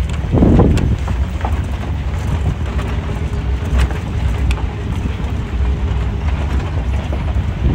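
Wind buffeting the microphone: a loud, steady low rumble, with a stronger gust just after the start.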